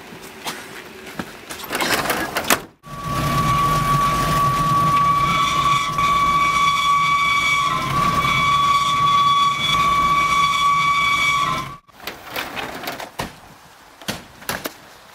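A loud, steady high whistle-like tone with several overtones over a low rumble. It cuts in abruptly about three seconds in, holds for about nine seconds and cuts off just as abruptly. Scattered knocks and shuffling come before and after it.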